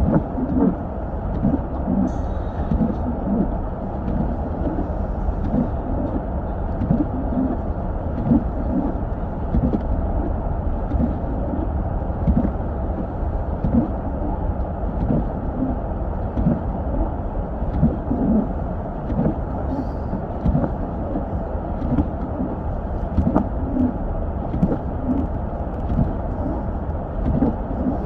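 A car driving on snow-covered roads, heard from inside the cabin: a steady low rumble of engine and tyres.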